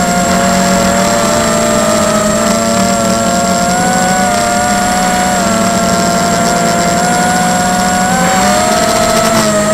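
Tarot 250 racing quadcopter's brushless motors and propellers whining steadily, heard from its onboard camera, the pitch wavering slightly with throttle and dipping briefly about eight seconds in.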